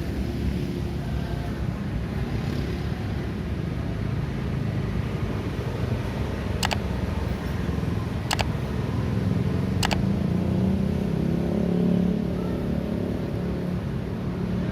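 Street traffic with vehicle engines running steadily, and one vehicle passing close and louder from about ten seconds in. Three sharp clicks come about a second and a half apart in the middle.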